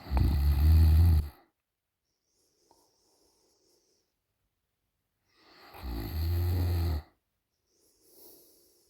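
A woman snoring in her sleep: two loud, low snores about five seconds apart, each followed by a softer breath.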